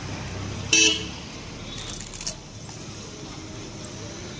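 Roadside street noise with a short, loud vehicle horn beep a little under a second in. A brief light metallic jangle follows around two seconds.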